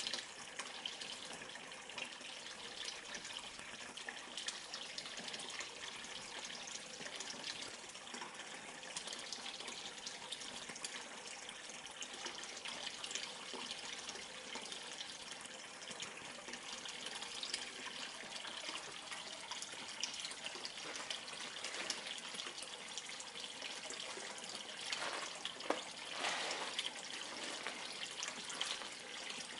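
Steady stream of water pouring from a spout into an indoor turtle pond, splashing on the surface. A brief louder splashing comes near the end.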